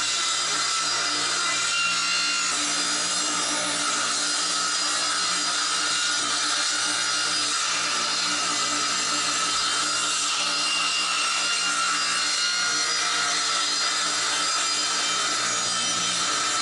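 Small benchtop table saw running steadily at a constant pitch while a 3/4-inch-thick 1x12 board is fed through the blade.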